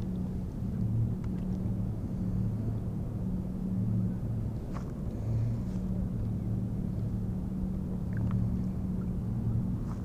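A steady low engine hum, as of a motorboat, swelling and fading every second or so over a low rumble, with a couple of faint clicks.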